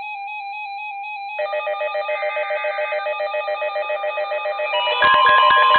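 Several weather radios sounding their alert alarms at once: a fast-pulsing electronic beeping, with a second radio's beeping joining about a second and a half in. Near the end it gets louder as a steady high warning tone comes in under the pulsing beeps.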